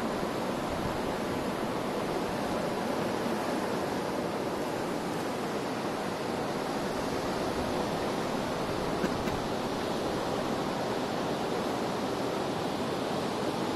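Steady, unbroken hiss of sea surf washing on the shore.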